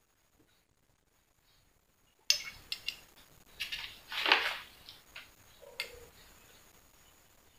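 A metal spoon and a soy sauce bottle clinking as dark soy sauce is poured onto the spoon: quiet at first, then a sharp click about two seconds in, a few lighter taps, a louder clatter a little past the middle and one last click.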